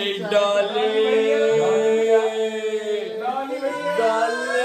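Singing with long held notes, one voice steady on a note for a couple of seconds before changing pitch.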